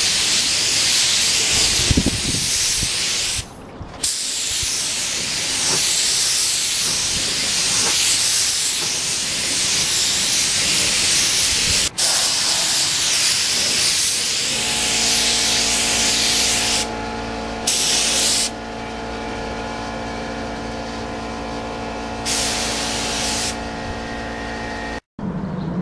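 Compressed-air paint spray gun hissing as it sprays paint onto a motorcycle fairing panel, cutting off briefly several times between passes as the trigger is released. About two-thirds of the way through, a steady low hum starts up beneath the hiss.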